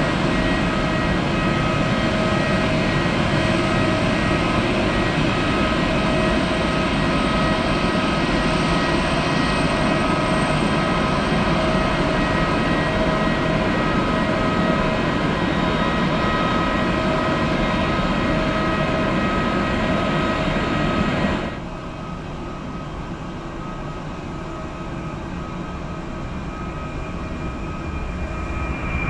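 Boeing 767-300ER's General Electric CF6 turbofans running as the airliner taxis past, a steady engine noise with high whining tones. About two-thirds of the way through, the sound drops suddenly and turns duller, then swells again near the end.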